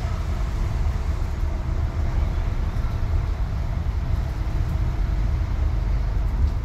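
Steady engine and road rumble of a moving vehicle, heard from inside the cabin.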